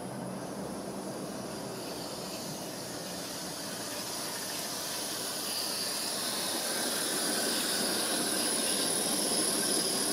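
A lash-up of five G-scale live-steam locomotives running together, giving off a steady steam hiss that grows louder from about four seconds in as they come closer.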